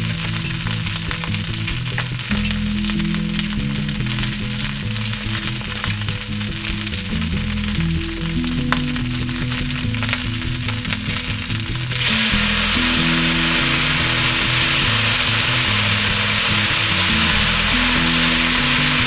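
Food sizzling and frying in a hot pan, a steady crackling hiss that suddenly gets much louder about twelve seconds in.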